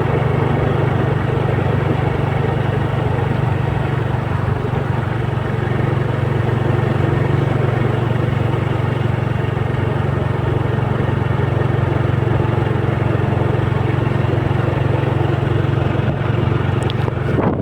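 A steady engine drone that holds an even pitch throughout, with a short disturbance near the end.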